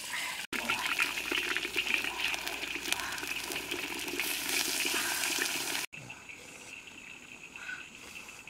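Fish fillets sizzling and crackling in hot oil in an iron wok, a dense spattering hiss from about half a second in until an abrupt cut near six seconds. After the cut only a quieter steady background remains.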